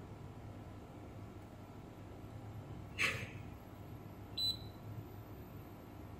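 Digital multimeter giving one short, high beep about four seconds in as its probes touch the pins of the power supply's MOSFET. The reading drops to near zero, the sign of a short across the part, which the repairer finds to be a damaged MOSFET. A moment earlier there is a brief scrape of a metal probe tip on the board, the loudest sound.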